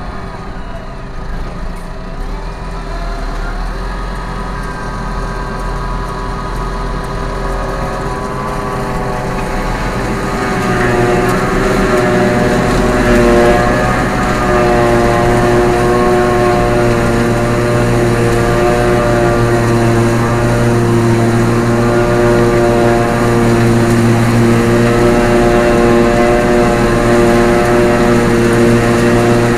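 A John Deere self-propelled forage harvester picking up and chopping grass alongside. Its engine and chopping gear give a steady drone with a strong pitched whine that grows louder about ten seconds in as the machine comes close. A tractor engine runs underneath.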